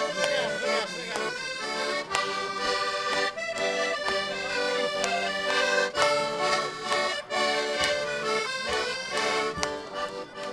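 Concertinas, small diatonic button accordions, playing a Portuguese folk tune together.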